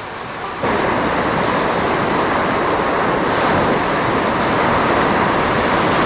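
Ocean surf washing onto the beach: a steady, loud rush of wave noise that comes in suddenly about half a second in.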